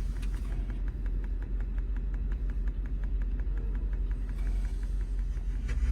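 Regular ticking from the front speakers of a 2004 Mercedes G500, about seven ticks a second, over the low rumble of the idling V8. The ticking only comes with the engine running and follows the revs: electrical interference into the audio system, which the owner suspects comes from the alternator regulator.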